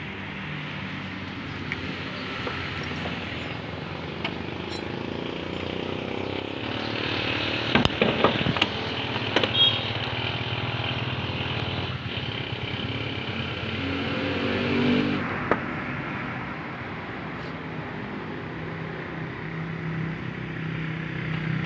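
A motor vehicle engine running, its level rising and falling, with a few sharp clicks about eight and nine and a half seconds in.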